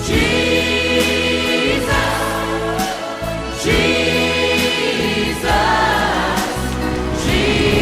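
Worship music: a choir sings long held chords, without words, over instrumental backing. The chord changes about every two seconds.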